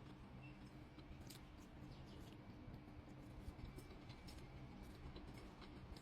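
Faint, irregular small clicks and ticks, heard as quiet eating sounds, over a low steady hum.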